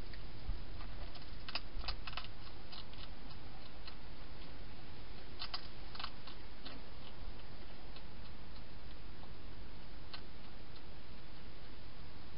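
A hedgehog crunching food: two short runs of crisp clicks, about a second and a half in and again around five and a half seconds in, and one more click near ten seconds, over a steady hiss.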